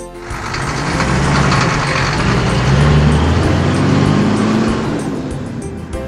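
Truck engine sound effect: a truck revving and driving off, swelling to a peak about halfway through and fading near the end, with light music underneath.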